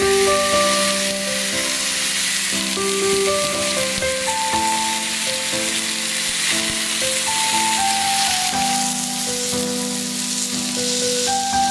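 Marinated chicken pieces sizzling steadily as they dry-fry in a hot wok with no oil. Background music with a slow melody plays over it.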